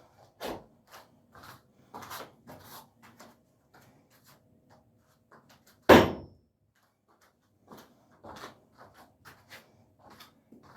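A thrown knife strikes a target with one loud, sharp thunk about six seconds in, followed by a brief metallic ring. Lighter knocks and handling clicks come and go around it.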